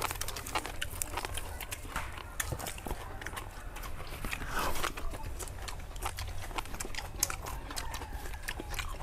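Close-up mouth sounds of people eating grilled meat and raw vegetables: chewing and lip smacking heard as a run of irregular clicks over a low steady hum, with a brief louder sound about halfway through.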